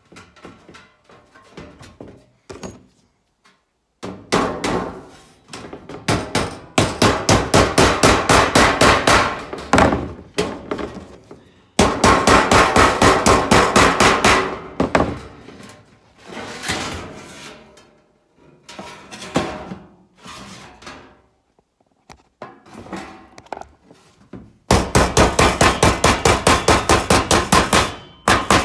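A regular hammer beating on the seam of a sheet-steel duct fitting to lock the last side in place: runs of rapid sharp metal blows, several a second, with short pauses between runs and a loud run near the end.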